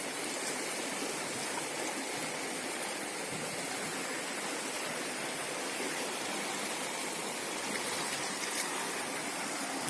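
Swollen floodwater flowing past in a steady, unbroken rush.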